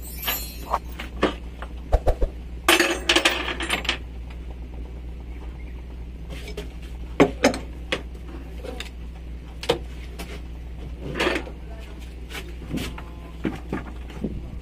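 Metal hand tools clinking and knocking in scattered, irregular strikes, over a steady low hum.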